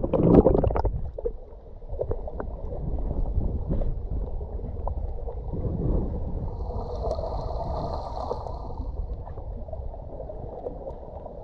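Muffled underwater noise from a camera held just below the sea surface: a low rumble of moving water with small clicks, and a louder splash in the first second as the camera goes under.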